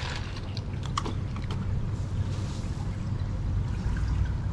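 Steady running water with a low hum beneath it, and a few soft clicks in the first second and a half.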